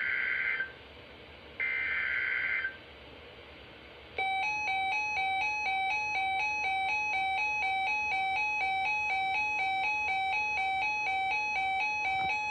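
Emergency Alert System (SAME) header: two buzzy digital data bursts of about a second each near the start. About four seconds in, the alert attention tone starts and sounds steadily with a quick, even pulse, announcing a new weather alert on NOAA Weather Radio.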